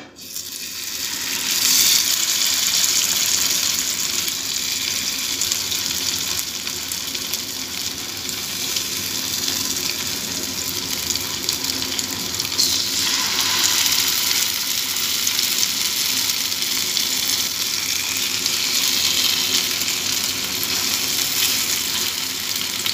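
Marinated vetki (Asian sea bass) steaks sizzling in shallow oil in a frying pan on low-medium heat. The sizzle builds over the first couple of seconds and swells again twice as more pieces are laid in.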